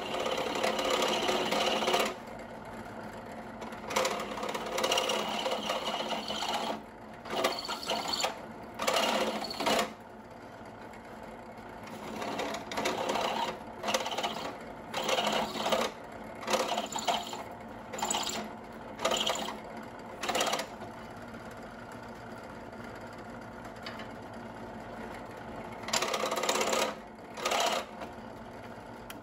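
Benchtop drill press running steadily while a countersinking bit bites into an aluminium weapon bar in a dozen or so short passes, each a half-second to two-second grinding cut, sinking the screw holes so the screw heads sit lower.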